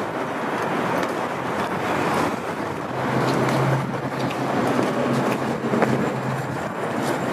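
Manhattan street ambience: a steady wash of city traffic noise. A low steady hum comes in about three seconds in and stops shortly before the end.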